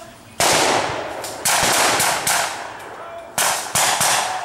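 Rifles firing blanks in a staged firefight: about five sharp shots at irregular intervals, each with a long echo. One comes early, one about a second later, and several follow in quick succession near the end.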